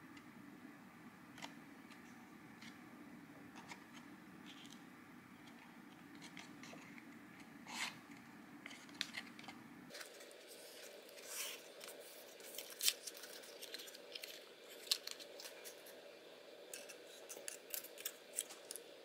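Stiff white paper handled and folded by hand: faint rustling with sharp little clicks and crackles as the creases are pressed and the pieces aligned, sparse at first and much busier from about halfway through.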